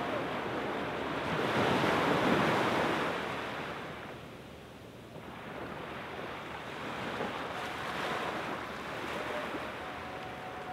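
Gentle surf washing onto a sandy beach: one wash swells up about two seconds in and draws back, then the waves go on lapping more softly.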